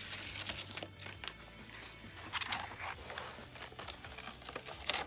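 Sheet of printed copy paper being peeled off a sticky cutting mat, rustling and crinkling in short irregular bursts, over quiet background music.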